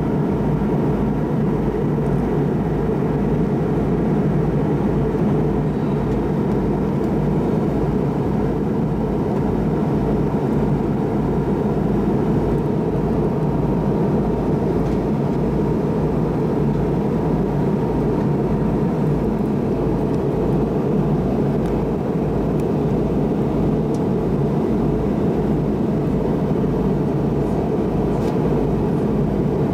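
Steady cabin noise of a McDonnell Douglas MD-88 airliner on approach: an even, low rush of its rear-mounted Pratt & Whitney JT8D turbofans and airflow, with a faint steady tone above it.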